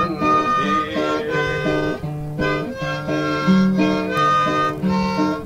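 Background music: an acoustic country-style tune with a harmonica lead over guitar.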